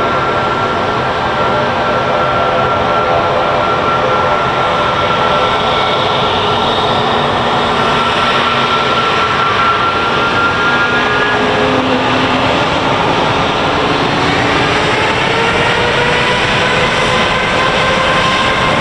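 Jet airliner's engines running loud: a steady rush with a whining tone on top. In the last few seconds the whine rises in pitch.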